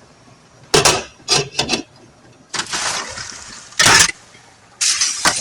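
Cooking sounds at a pot: a few sharp clinks and knocks of utensils, a short burst of splashing, and a louder clatter, then a steady sizzling hiss that starts near the end.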